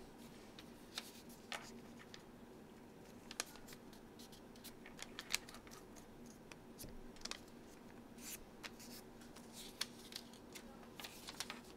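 Origami paper being folded and creased by hand: scattered crisp rustles and sharp little clicks as the sheet is handled and pressed flat, over a faint low steady hum.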